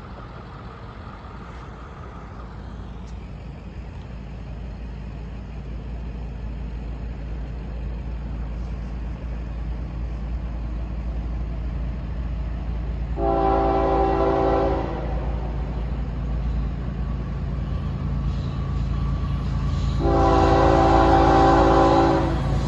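Florida East Coast Railway diesel freight locomotives approaching with a low rumble that grows steadily louder. The lead locomotive gives two long blasts on its multi-chime air horn, one about halfway through and one near the end.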